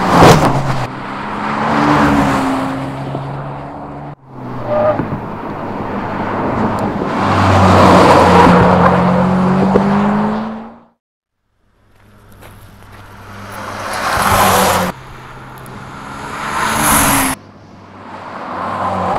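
Hyundai IONIQ 5 N electric car driven hard with its Active Sound+ generator playing a synthetic engine note: an engine-like tone that climbs and drops with speed over tyre noise, in several short passes cut together, with a brief silent break in the middle.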